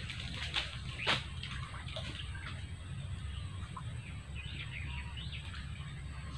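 Outdoor ambience of small birds chirping on and off over a steady low rumble, with a couple of sharp clicks about a second in.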